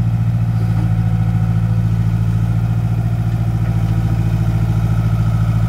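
Komatsu PC60 hydraulic excavator's diesel engine running steadily with an even, pulsing drone while the machine digs dirt.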